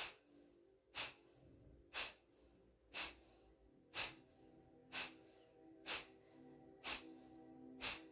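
Kapalabhati breathing: short, forceful exhalations snapped out through the nose, about one a second at a medium pace, each a sharp puff with quiet passive inhales between. Soft background music with long held notes runs underneath.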